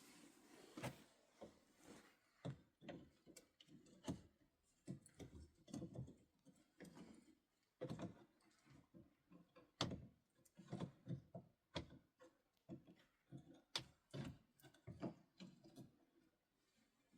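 Near silence, broken by faint, irregular soft taps and knocks, now and then several in quick succession, with short pauses between.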